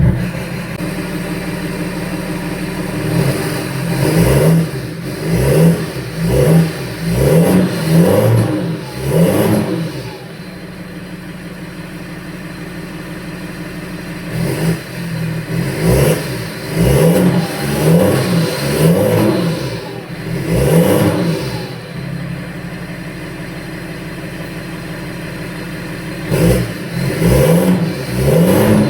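BMW M57 straight-six diesel idling and blipped repeatedly, in three bursts of several quick revs each with steady idle between. It runs through an exhaust with the rear silencer and diesel particulate filter removed and the catalytic converter still in place.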